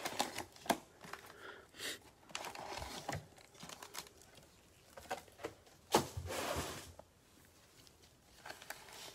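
Plastic-wrapped Donruss Optic football card packs crinkling and rustling as they are pulled from a cardboard box and stacked on a table, with light taps as they are set down. A louder rustle comes about six seconds in.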